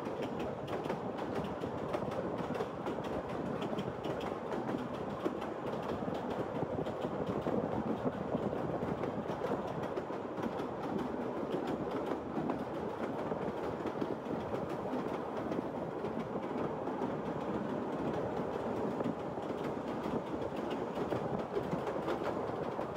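Narrow-gauge Kurobe Gorge Railway train running steadily, heard from an open-air passenger car: a constant rumble of wheels on rails with light clacks over the rail joints.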